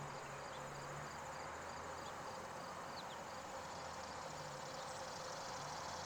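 Faint insects chirping in an even pulse, about three chirps a second, over a steady low hum, with a few brief high chirps scattered through.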